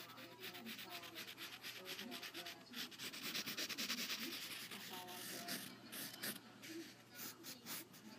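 Pencil scratching on paper in quick back-and-forth sketching strokes, busiest about three to four seconds in.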